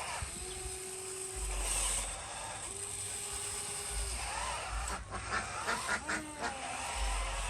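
Small electric motor of an RC construction model whining at an even pitch in two spells of about a second each, followed later by a quick run of clicks and rattles.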